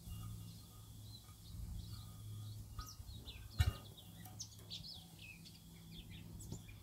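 Faint birds chirping in short high calls over a low steady hum, with a single sharp knock about halfway through.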